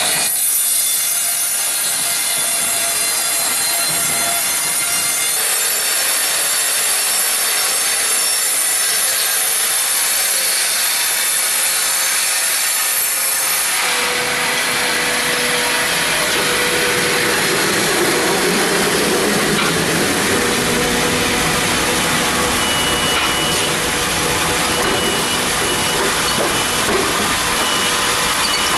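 Serra XT 135 portable bandsaw mill sawing through a large log, a steady high-pitched cutting noise. About halfway through the sound changes as a deeper running noise joins in.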